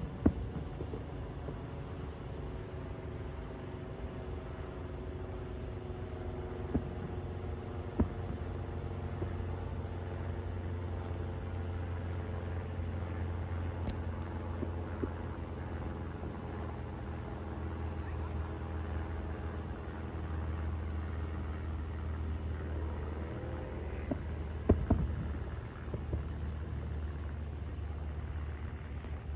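Steady low rumble of an idling engine, broken by a few sharp bangs: a couple right at the start, two more a quarter of the way in, and a pair near the end.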